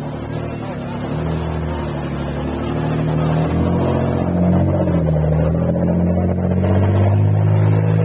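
Low, steady motor-vehicle engine drone whose pitch shifts up and down and which grows louder over the first few seconds, then holds.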